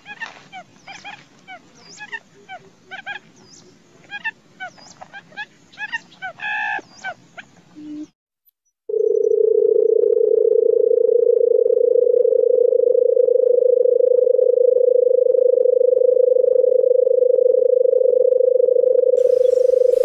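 A rapid series of short chirps for the first eight seconds or so. After a brief break, a loud, steady, low purring drone from the barred buttonquail, its drumming call, holds on unbroken.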